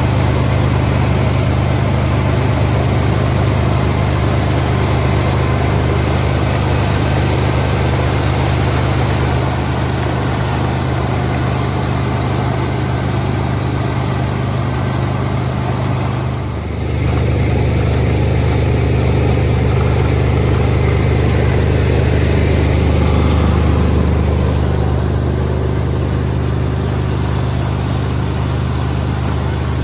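Kubota ER211 combine harvester's diesel engine running steadily, with a brief dip in level a little past halfway before it picks up again.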